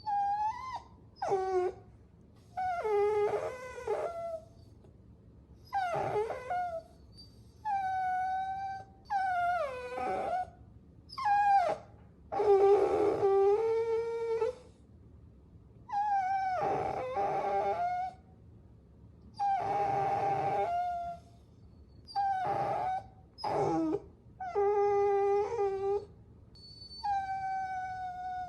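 Puppies whining and whimpering: a string of high-pitched whines, one about every two seconds, some sliding up or down in pitch, at times two voices together.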